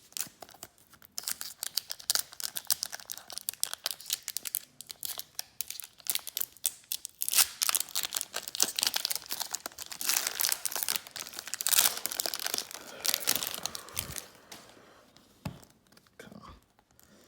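Wrapper of an Upper Deck Extended Series hockey card pack crinkling and tearing as it is opened and handled: a dense run of crackles that stops about 14 seconds in.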